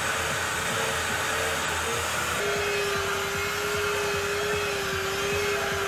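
Handheld electric power tool running steadily on a pine board, its motor tone dropping slightly about two and a half seconds in.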